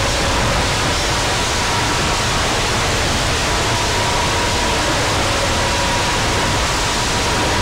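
Loud, steady hiss-like noise spread evenly from low to high pitch, with a faint high steady tone running through it.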